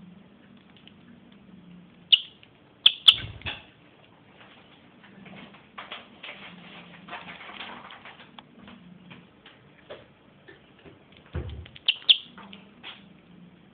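Rosy-faced lovebird giving short sharp chirps, a few in quick succession about two to three seconds in and a pair near the end. Low thumps come around three seconds in and again shortly before the last chirps.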